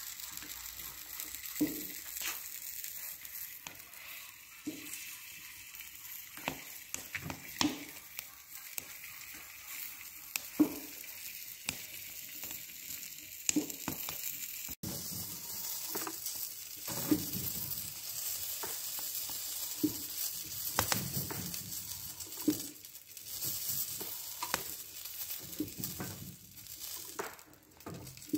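Kutab flatbreads sizzling on a hot saj griddle over a wood stove: a steady hiss, with sharp taps and scrapes every second or two from a metal spatula on the iron.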